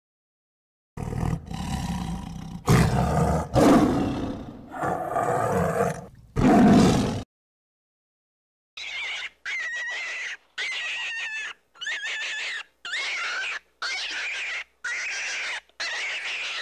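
Tiger roaring and growling: about five loud, low calls in a row. After a short silence comes a run of about eight short, high-pitched squeaks, evenly spaced, each under a second long.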